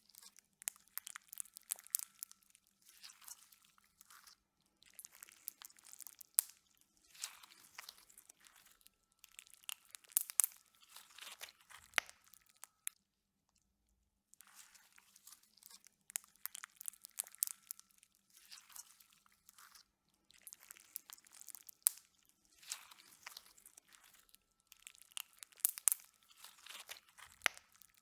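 Slime being squeezed and worked by hand, crackling and popping in short bursts of fine clicks with brief pauses between them, and a longer pause about halfway through.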